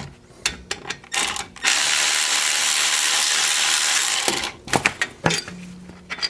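Cordless ratchet running, backing out a hub retaining bolt on a Jeep Dana 30 front axle: a brief burst about a second in, then a steady run of about two and a half seconds. A few metal clinks follow near the end as the bolt and tool are handled.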